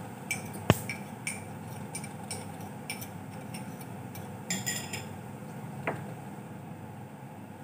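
A metal fork clinking against a ceramic bowl while stirring grated cheese into beaten eggs: a run of light clinks a few times a second, one much louder knock about a second in, a short flurry of clinks past the middle and a last click near the end, over a steady low hiss.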